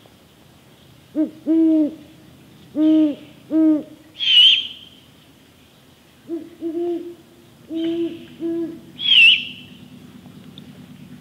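Great horned owls calling: two series of four deep hoots, each series in a 'hoo, hoo-oo … hoo, hoo' rhythm, broken twice by a loud, raspy screech, once after each series.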